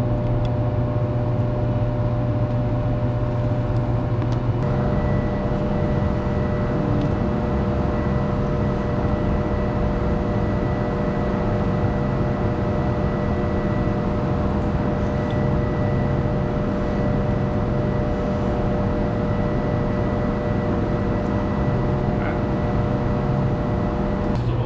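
A steady mechanical drone with a low hum and a few steady tones, and a faint higher whine joining about five seconds in.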